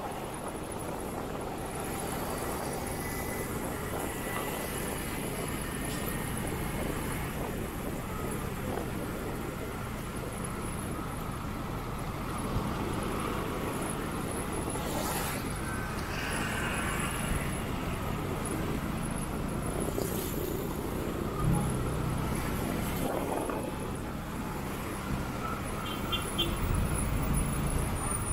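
Road noise from a motorcycle riding in highway traffic: a steady rush of engine and road noise, with other vehicles passing. It grows a little louder near the end.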